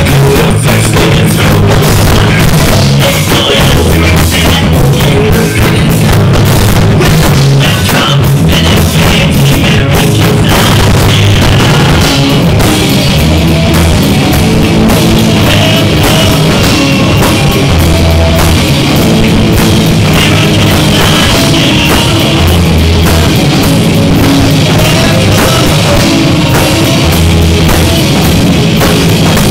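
Live rock band playing loud: several electric guitars over a pounding drum kit, without a break.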